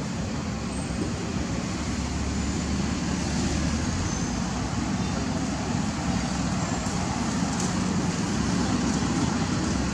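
Steady outdoor background rumble with no distinct events, of the kind distant road traffic makes.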